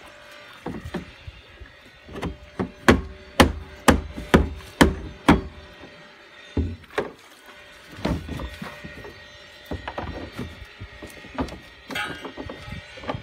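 A mallet striking a mushroom pin into the joined plastic float cubes of a modular floating dock: a run of about seven sharp knocks, roughly two a second, followed by a few scattered lighter knocks.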